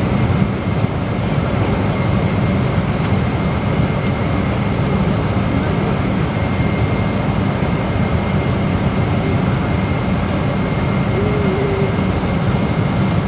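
Steady cabin noise inside a jet airliner taxiing to the runway: a low engine hum and rush of air, with a thin steady high tone over it.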